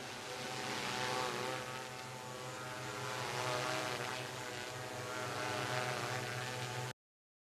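Multirotor agricultural spraying drone flying low, its rotors giving a steady buzzing hum that swells louder a few times as it passes. The sound cuts off suddenly near the end.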